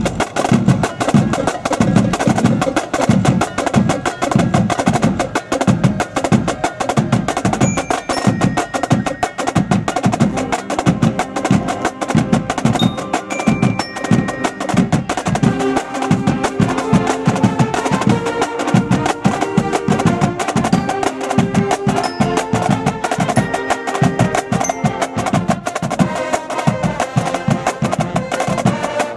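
Marching-band drumline playing a fast, steady cadence on bass drums and snares, with sharp stick and rim clicks. About halfway through, held brass notes come in over the drumming.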